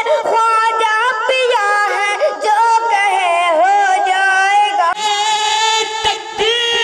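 A high voice singing a naat in an ornamented melody, sliding and wavering between notes over a steady held tone. A few low thumps come in after about five seconds, and the voice settles on a long held note near the end.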